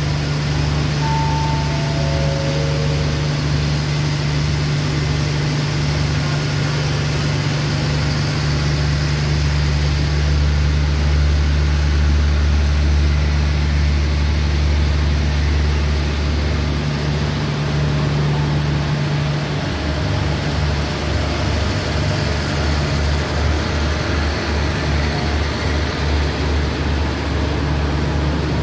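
Diesel engine of the standing express train running with a steady low drone, which takes on a rapid pulsing beat in the last third. About a second in, a station PA chime plays four short descending notes.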